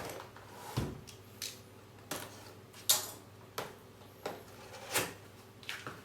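A knife cutting open a cardboard box, with the box handled: a string of short, sharp scrapes and knocks.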